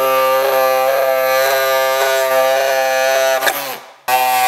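Pneumatic air tool on an air hose running at a steady high whine, then let off about three and a half seconds in so the pitch winds down, followed by a short second burst near the end.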